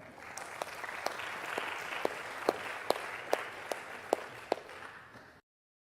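Audience applause, with a few individual sharp claps standing out above the rest. It fades gradually and cuts off abruptly near the end.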